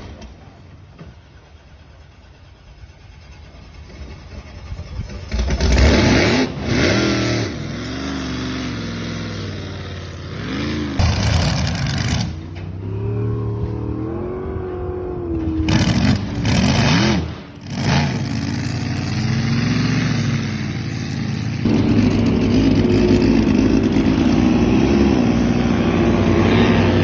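Racing speedboat engines revving as the boats pass, with the pitch rising and falling again and again. They start as a faint rumble, grow loud about five seconds in with several sharp peaks, and run loud and steady near the end.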